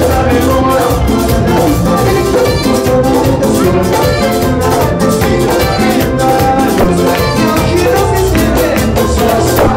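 Live band playing loud Latin dance music, with keyboard and drum kit keeping a steady beat.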